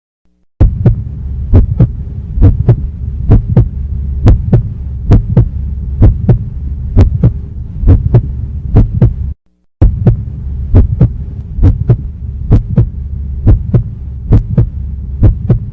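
A bass-heavy beat: a steady deep drone with sharp, evenly spaced hits about two a second, cutting out briefly about nine seconds in.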